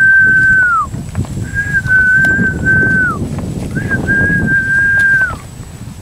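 A long whistled note held at one steady pitch, ending each time in a short downward slide. It repeats about every two seconds, with the notes about one and a half seconds long. Underneath are footsteps and rustling on the path.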